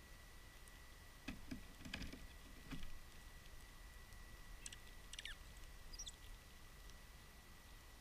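Sparrows feeding on seed on a wooden deck close by: a few faint pecks and taps, then a few brief, high, thin bird chirps a few seconds later.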